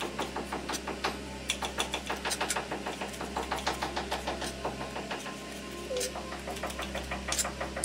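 Small knife slicing green chillies on a wooden cutting board: quick, even taps of the blade on the board, several a second, over a steady low hum.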